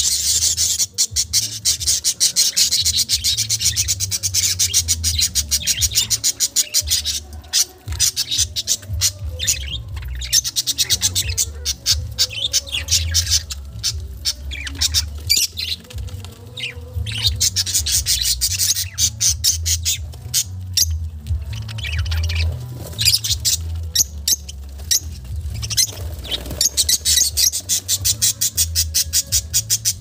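Budgerigars chattering and squawking: a fast, scratchy warble with chirps that carries on throughout, over a low rumble.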